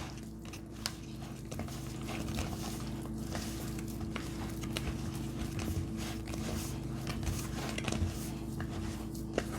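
Pounded yam flour and water being stirred into a dough in a bowl, the utensil scraping and clicking irregularly against the dish with soft squishing.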